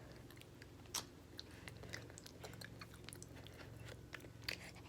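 A person chewing a piece of jerky-like dog food: faint crunching and small mouth clicks, with a sharper bite about a second in.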